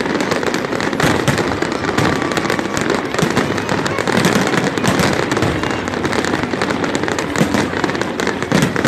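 Fireworks and firecrackers going off in a dense, continuous barrage of bangs and crackles with no let-up.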